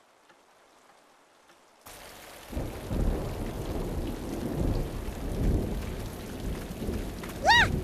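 Rain starting about two seconds in, with low rumbling thunder building under it. A brief pitched tone rises and falls near the end.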